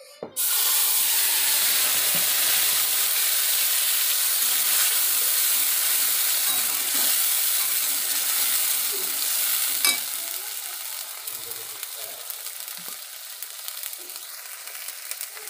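Wet spice paste of ground cumin, black pepper, ginger and Kashmiri chilli powder dropped into hot oil in a kadai: a sudden loud sizzle that holds steady, then eases a little about ten seconds in while a metal spatula stirs it, with light scraping ticks.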